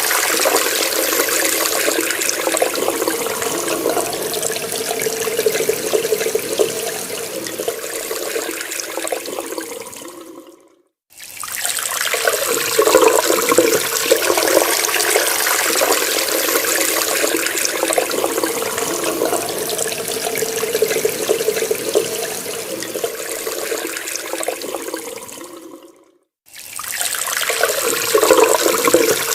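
Water running steadily from a tap and splashing, fading out twice to a moment of silence and starting again straight after.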